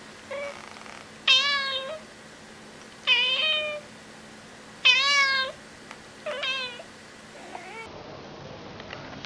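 A grey tabby cat meowing repeatedly at the camera: five meows about one and a half seconds apart, the middle three loud and drawn out, the first and last shorter and quieter.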